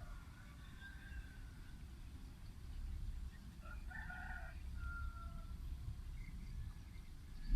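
A faint animal call about four seconds in: a short run of pitched notes ending in one held note, over a steady low rumble.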